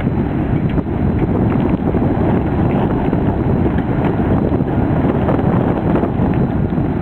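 Strong wind buffeting the microphone with a steady, dense rumble, with faint scattered ticks over it.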